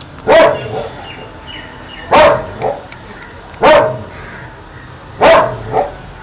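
A pug barks four times, about every one and a half seconds. Each loud bark is followed closely by a softer one.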